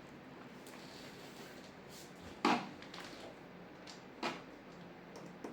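Hard knocks from handling a TV's plastic back cover and tools during reassembly: one sharp knock about two and a half seconds in, the loudest, a smaller one near four seconds and a faint click near the end.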